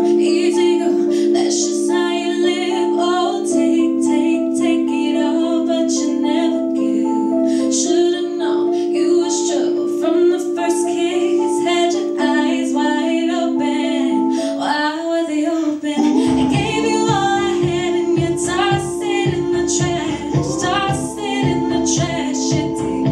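A young woman singing solo into a microphone over an instrumental backing of held chords. About two-thirds of the way through, a bass beat comes in under the song, about two pulses a second.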